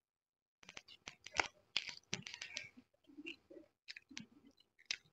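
Close-up chewing of lechon manok (Filipino spit-roasted chicken), a dense run of sharp, clicky crunches and wet mouth sounds that starts about half a second in.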